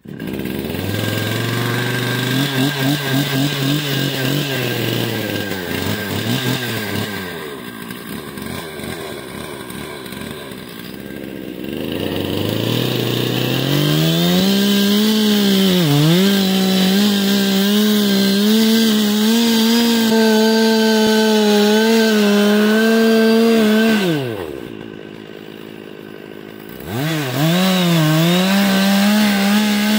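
Gas chainsaw cutting into the trunk of a large dead oak. It runs at part throttle at first and eases off, then revs to full throttle, its pitch dipping again and again as the chain bites into the wood. Late on it drops back to idle for a couple of seconds, then revs up and cuts again.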